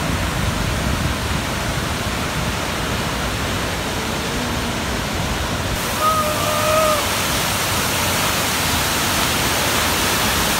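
Velo de Novia waterfall pouring close by: a loud, steady rush of falling water. About six seconds in, a short high-pitched call sounds over it for about a second.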